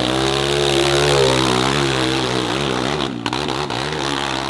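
Dirt bike engine running at high revs, its pitch wavering up and down as the throttle is worked.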